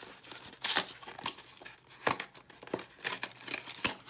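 Cardboard trading-card hanger box being torn open by hand: a loud rip a little under a second in, then several shorter tears and crinkles as the flap is pulled back and the cards are slid out.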